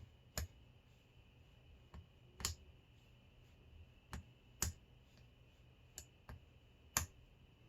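Small metallic clicks of lock picks and a tension wrench working the pins of a Hurd padlock: about nine sharp, scattered clicks.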